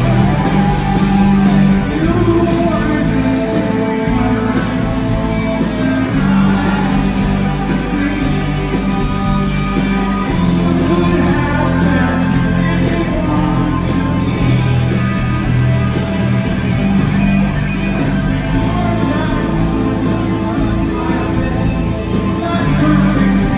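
Live rock band playing loudly: electric guitar over bass and drums, heard from among the audience in a large hall.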